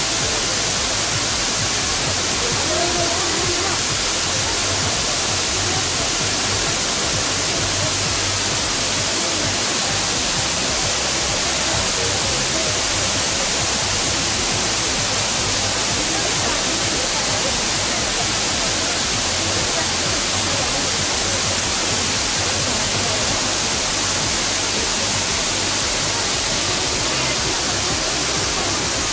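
Waterfall running steadily: an even hiss of water falling over rock, unbroken throughout.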